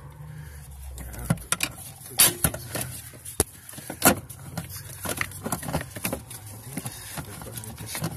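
Scattered metal clinks and knocks of hands and parts working on a car's stripped steel dashboard support frame, with two louder knocks about two and four seconds in.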